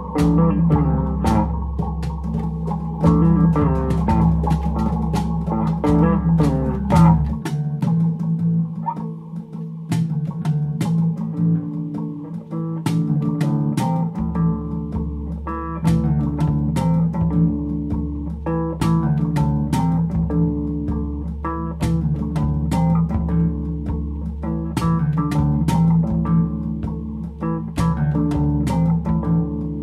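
Background music: plucked guitar over bass with light percussion. The bass drops out about seven seconds in and comes back around fourteen seconds.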